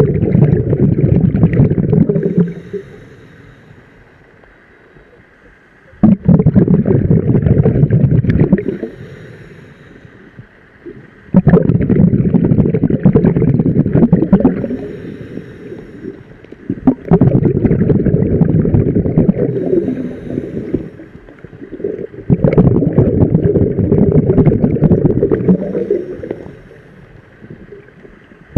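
A scuba diver's regulator, recorded underwater, sending out a rush of exhaled bubbles about every five and a half seconds. Each breath starts suddenly, bubbles for two to three seconds and fades, with quiet pauses for the in-breath between them.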